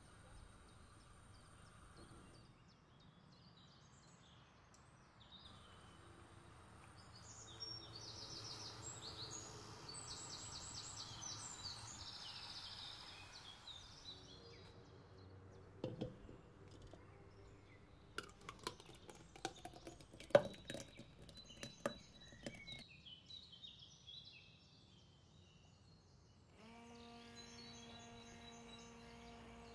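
Faint bird chirping, then a scatter of sharp clicks and taps, then an immersion blender's motor switching on about nine-tenths of the way in and running with a steady hum as it purées cooked strawberries.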